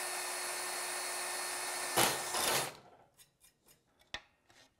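Cordless drill boring through a thin aluminum disc: the motor runs at a steady pitch for about two seconds, then turns louder and rougher for about half a second before stopping around three seconds in. A few light clicks and rustles of thin aluminum sheet being handled follow.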